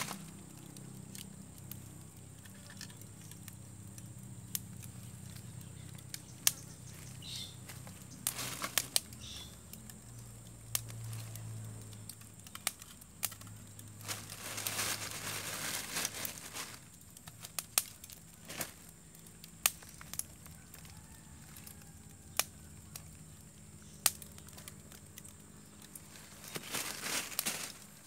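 Small wood fire of split kindling and charred wood crackling with scattered sharp pops. A few times, rustling and scraping as more charred wood is laid on the fire.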